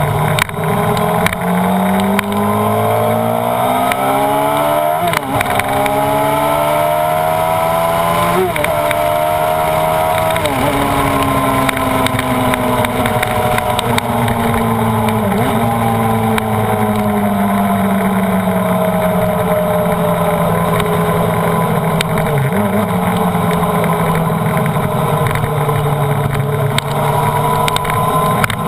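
Honda CBR929RR's inline-four engine pulling up through the gears. The pitch climbs and drops suddenly at each upshift, about five, eight and ten seconds in. The revs then sink slowly for about ten seconds and climb again near the end.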